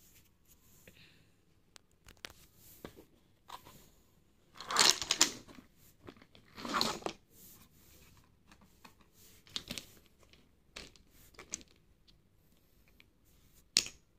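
Small glass nail polish bottles being tipped out of a plastic basket onto a bedspread and set out by hand. There are two louder spells of clatter about five and seven seconds in, and scattered small clicks as bottles knock together or are set down, with a sharper click near the end.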